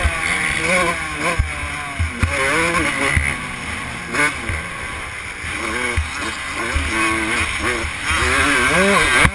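Motocross dirt bike engine heard from on board, revving up and dropping back over and over as the throttle is worked. Short low knocks come through as the bike hits ruts and braking bumps, over steady wind noise.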